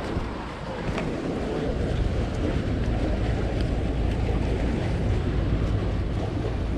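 Wind buffeting the microphone: a steady, low rumbling noise, with water moving faintly underneath.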